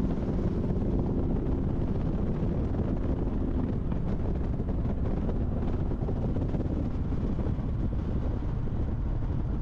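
Wind buffeting the microphone over the low, steady rumble of a Harley-Davidson Tri Glide trike under way, with road noise. A faint tail of background music fades out in the first seconds.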